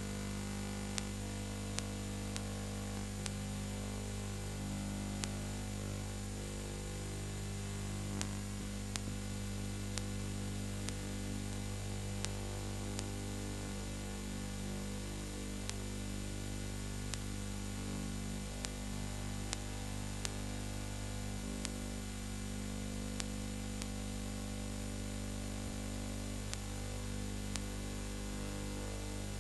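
Steady electrical mains hum with static hiss and sharp clicks about once a second: the noise of a silent film's transfer, with no soundtrack of its own.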